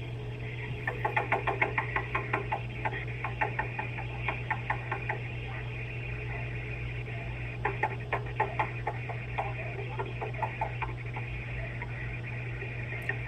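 Doorbell-camera audio: a steady low electrical hum with two spells of rapid crackling clicks, several a second.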